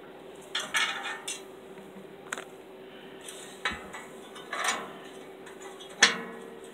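Scattered sharp metallic clinks and taps, about eight at irregular intervals, the loudest about six seconds in, over a faint steady hum.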